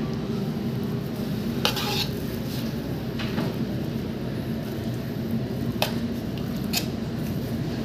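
A spoon clinking and scraping against a stainless-steel food pan, with a few sharp metal knocks about two, six and seven seconds in, over a steady low hum.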